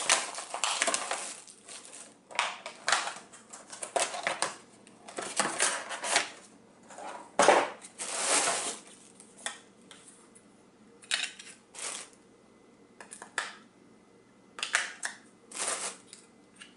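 Clear plastic packaging rustling and crinkling as a remote control is pulled out of its plastic bag and wrapping, in irregular bursts that thin out to short separate rustles in the second half.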